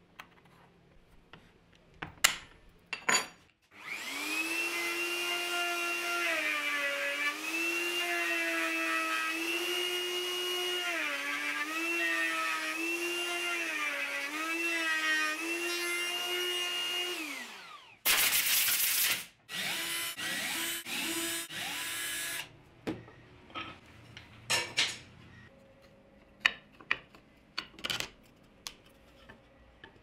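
Bosch POF 1200 AE plunge router running, its high whine dipping in pitch each time the bit bites into the ash, then winding down a little over halfway through. A few short bursts of rushing noise follow, then scattered knocks and taps of wood pieces being handled on the bench.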